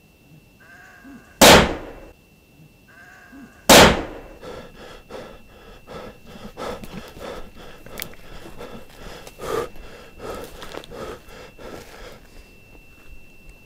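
Two loud bangs about two seconds apart, then panting breath and rustling movement.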